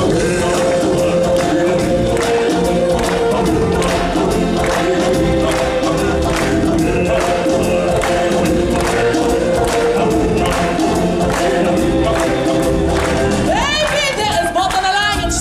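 Live show music: a choir holding long sustained notes over a steady percussion beat. Near the end a solo voice comes in with wavering, ornamented runs.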